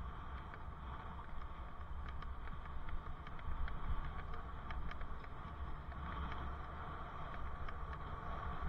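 Steady wind and road rumble from a bicycle riding along a city street, picked up by a helmet-mounted camera, with small irregular clicks and rattles throughout.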